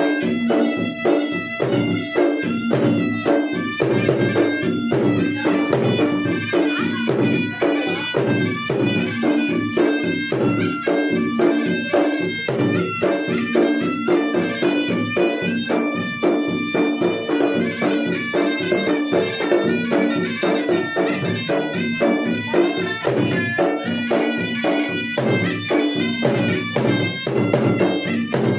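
Traditional Makassarese gendang ensemble: two-headed gendang drums beaten in fast, dense strokes under a shrill, continuous double-reed pui-pui melody.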